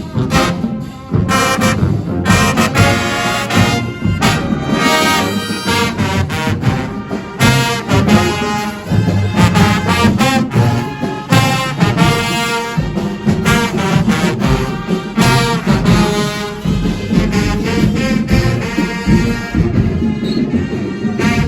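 Marching band playing loudly: a full brass section with trombones and trumpets carrying the tune over a drumline's steady beat.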